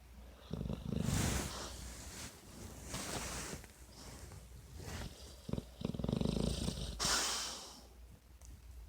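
Dog snoring in its sleep: a low, fluttering snore followed by a breathy exhale, repeating over several slow breaths.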